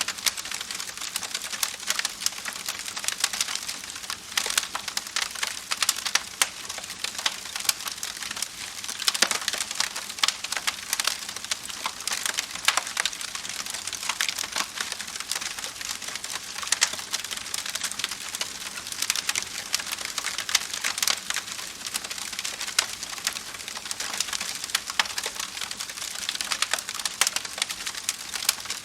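Campfire crackling: burning wood giving a dense, irregular run of sharp pops and snaps over a soft steady hiss.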